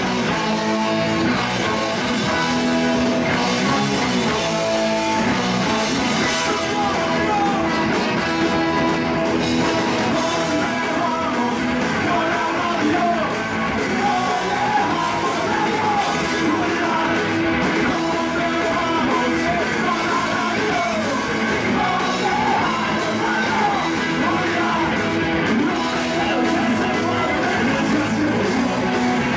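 Ska-punk band playing live: electric guitars, drums and a brass horn, with sung and shouted vocals.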